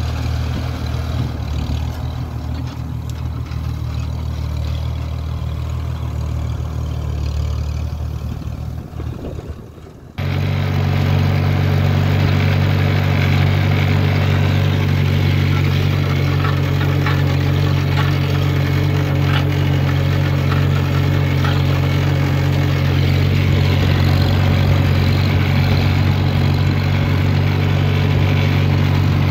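1950 McCormick Farmall H's four-cylinder engine running steadily under load while pulling a hay rake. For the first third it is heard from beside the field and fades as the tractor moves away, then it cuts abruptly to a much louder, closer sound from on board the tractor, right behind the exhaust stack.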